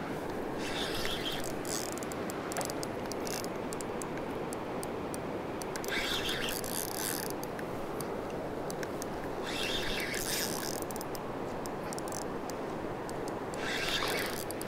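Spinning reel being cranked to retrieve a cast spinner, in four short spells of winding with scattered ticking, over the steady rush of a shallow river.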